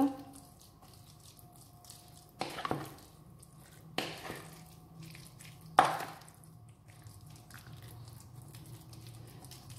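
Steel spoon stirring thick gram-flour batter full of chopped potato in a bowl, with three louder strokes a second or two apart.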